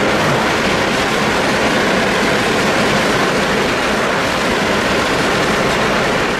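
Interior noise of a Pontiac Grand Prix GTP's supercharged 3800 V6 with aftermarket Speed Daddy headers on a highway run at about 85–90 mph: a steady mix of engine, wind and road noise as the revs ease down from about 4,000 to 2,500 rpm.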